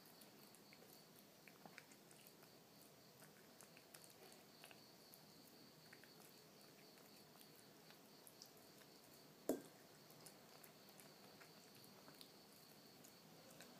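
Faint, wet chewing and smacking of a kitten eating a chunk of canned cat food from a ceramic saucer, a string of small clicks. About two-thirds of the way through there is one sharp knock, the loudest sound.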